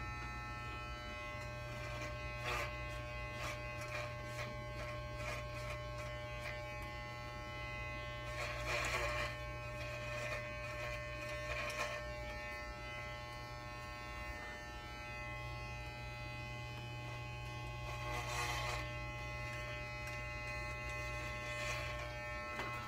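Corded electric hair clippers running with a steady buzz as they are worked through a short synthetic wig, the sound swelling into a louder rasp twice, about a third of the way in and again past the middle.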